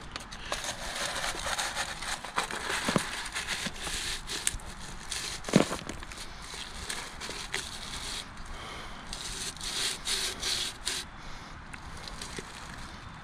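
Gloved hands pushing and pressing a plastic flower pot down into wet concrete inside a plastic jack-o'-lantern mold: continuous rubbing and crackling, with scattered small clicks and one sharper knock about five and a half seconds in.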